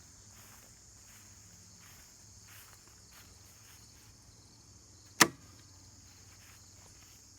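Steady high-pitched chirring of insects, with one sharp bang or knock about five seconds in.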